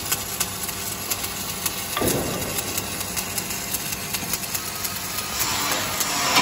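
Stick (shielded metal arc) welding on steel plate: the electrode's arc crackles and sizzles steadily, with frequent sharp pops.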